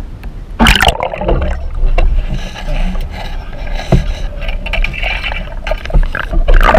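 A splash about half a second in as the spearfisher goes under, then muffled underwater noise: a low rumble of moving water with scattered clicks and knocks.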